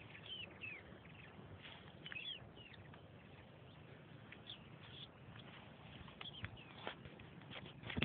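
Faint forest ambience with scattered short chirps from small birds, a few quick calls at a time over a steady low hiss.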